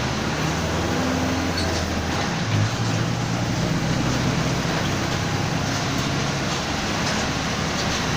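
Mercedes-Benz OF-1722M city bus running under way: the diesel engine and drivetrain hum steadily with the differential growling. The pitch shifts about two and a half seconds in, with a brief louder moment.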